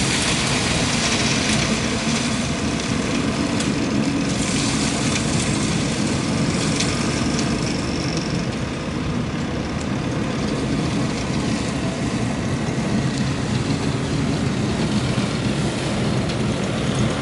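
Tractor engine running steadily at a distance as it works a towed leaf-collecting trailer: a continuous low drone, with a few brief higher rushing sounds in the first several seconds.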